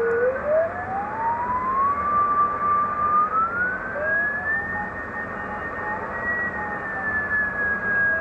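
ICOM IC-725 HF transceiver in USB receive: a hiss of band noise with a clear whistling beat tone over it. The tone rises smoothly in pitch from low to high over about five seconds, levels off, and dips slightly near the end. A fainter second tone joins about halfway through.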